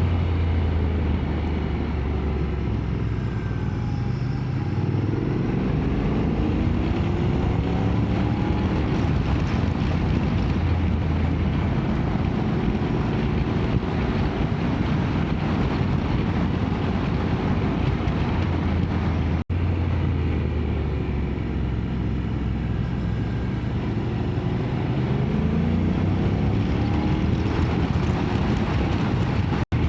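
Motorcycle engine running on the move, its revs rising and falling several times with gear changes, over a steady rush of wind noise. The sound cuts out for an instant twice, once past the middle and once near the end.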